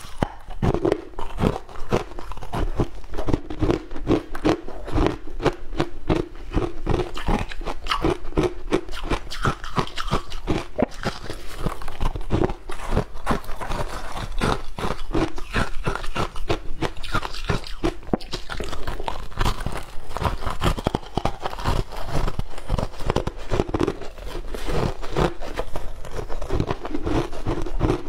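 Ice being bitten and chewed, a dense, continuous run of sharp crunches, with ice chunks shifting and scraping in a plastic tub as they are picked up.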